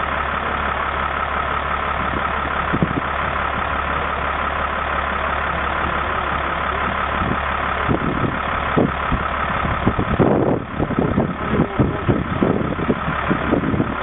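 A vehicle engine idling steadily, with scattered knocks and clatter in the second half as a wheeled stretcher is loaded into an ambulance.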